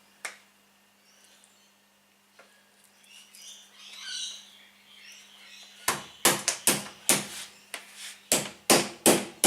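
Faint bird chirps, then about six seconds in a run of sharp, loud blows, about three a second: a piece of duck breast being pounded flat with a meat tenderizer to about 10 mm thick.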